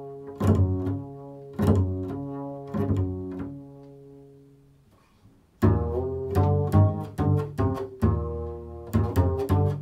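Improvised solo music of plucked low string notes, one about every second, each ringing on and fading; the playing dies away almost to silence about five seconds in, then starts again suddenly, louder, with quicker and denser plucking.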